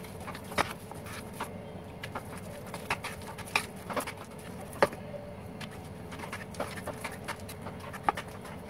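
A hand mixing thick besan (gram-flour) pakora batter in a plastic bowl: irregular wet squelches and sharp slapping clicks, several a second, the loudest about five seconds in.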